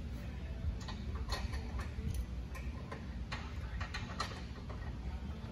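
Scattered light clicks and taps, irregular and a second or less apart, as a metal bumper hoop is set onto a stamped metal Jeep bumper and shifted into line with its bolt holes, over a steady low hum.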